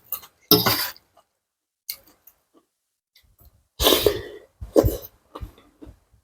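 Close-miked eating of spicy seafood salad with fresh vegetables: a few short, sharp bursts of mouth and breath noise, one about half a second in and two more around four and five seconds in, with small wet clicks between.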